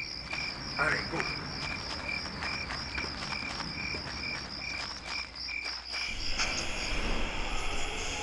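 Crickets chirping in a steady, even rhythm. A broad rushing noise swells in over the last couple of seconds.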